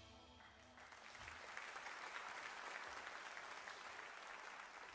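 A congregation applauding, starting about a second in and dying away near the end, as the last of the video's music fades out.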